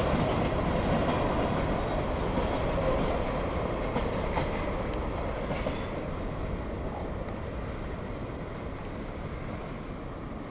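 CSX mixed freight train's cars rolling past on the rails, a steady rumble that fades away as the end of the train goes by and recedes.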